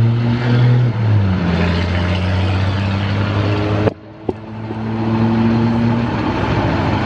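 Road traffic: a motor vehicle engine runs with a low, steady hum that drops in pitch about a second in. The sound cuts out abruptly near the middle, then builds back up.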